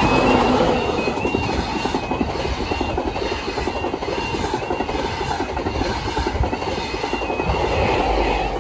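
High Speed Train (InterCity 125) passing at speed: the leading diesel power car goes by at the start, the loudest moment. The Mark 3 coaches follow with a steady rumble and clatter of wheels on rail, and the rear power car comes up near the end. The level crossing's stepped two-tone warning alarm keeps sounding underneath.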